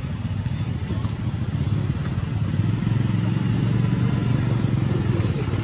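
A motor engine running steadily, a low hum, with short high chirps recurring every half-second or so above it.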